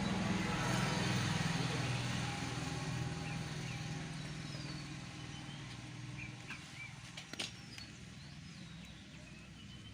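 A motor vehicle engine running, loudest in the first few seconds and then fading. Short high chirps come in later, and there is one sharp click about seven seconds in.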